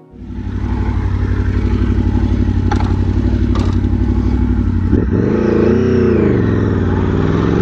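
Aprilia Tuono V4 motorcycle's V4 engine, heard on board: first a steady, pulsing note at low revs with two sharp clicks about three seconds in, then the revs rise and fall and climb steadily as the bike accelerates.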